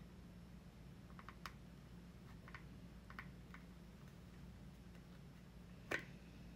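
Faint, scattered plastic clicks and taps as a small figure is handled against its round plastic base, with one sharper click near the end, over a low steady room hum.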